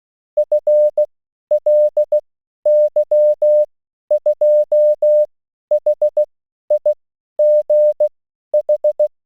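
Morse code sent as a single steady tone, keyed in short and long pulses (dots and dashes) in about eight groups of letters.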